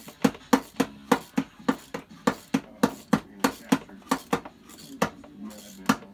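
Socket ratchet clicking in short, even strokes, about three a second, while an oil pressure sensor is threaded into the engine. The clicking stops about five seconds in, with one more click near the end.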